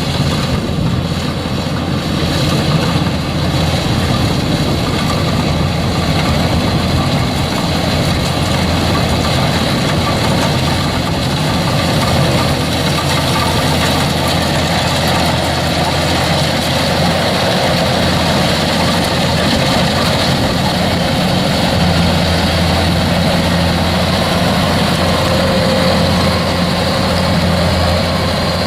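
Kubota DC105X combine harvester's diesel engine running steadily under working load while harvesting rice, a loud continuous machine sound with the rattle of its mechanism.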